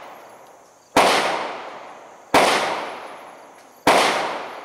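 Three rifle shots about a second and a half apart, each trailing off in a long echo.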